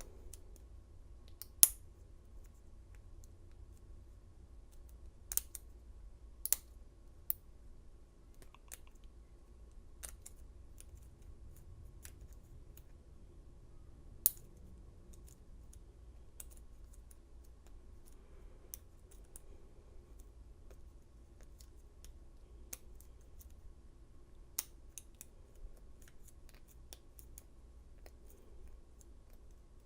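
Scattered small sharp clicks of a lock pick and tension wrench working in the cylinder of an American Lock 700 padlock, with a faint low hum.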